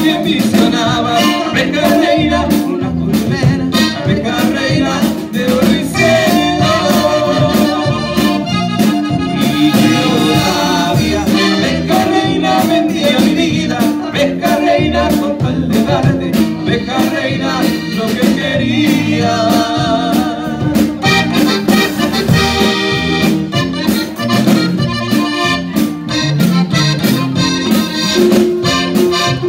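Live norteño band playing, a button accordion leading the melody over guitars and a drum kit with a steady beat.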